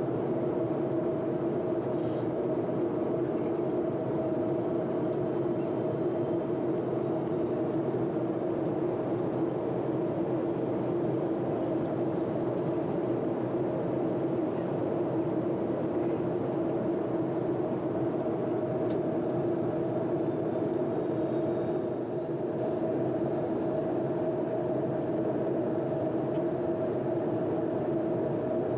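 Steady cabin drone of an Airbus A330-300 in cruise, the even rush of engines and airflow with a low steady hum. A couple of faint ticks come through about two seconds in and again about two-thirds of the way through.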